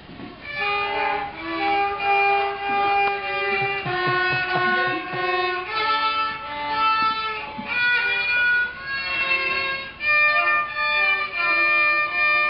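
Violin playing a slow melody of separate bowed notes, each held for about a second.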